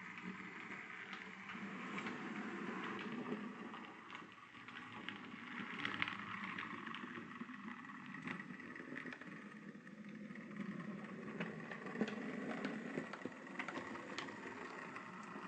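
Model railway locomotive, a model of BR Standard tank engine 82029, running along the track: a faint steady motor hum with irregular small clicks from the wheels crossing rail joints and pointwork.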